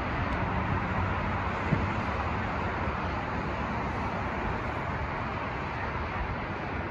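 Steady outdoor rushing noise, with one faint low thump about a second and a half in.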